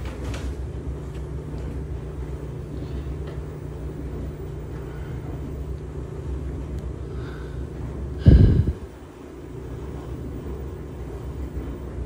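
LG washing machine running, a steady low rumble and hum, with one loud thump a little over eight seconds in.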